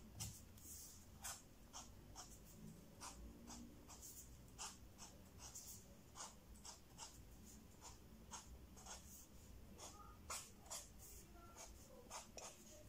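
Pen drawing short strokes on paper: faint, irregular scratches and taps, a few each second.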